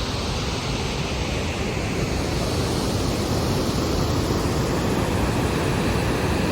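Little River Falls waterfall: steady, loud rushing of falling water.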